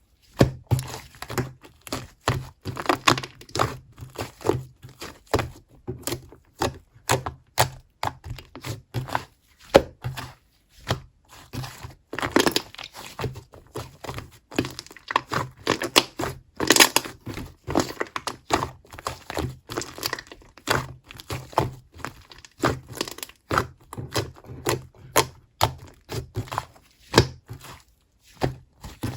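Slime being squeezed, folded and poked by hand, giving an irregular stream of sticky clicks and air-bubble pops, several a second.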